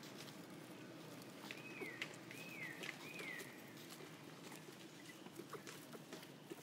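Three short, high, falling calls in quick succession, typical of an infant long-tailed macaque, with faint rustling and small ticks around them.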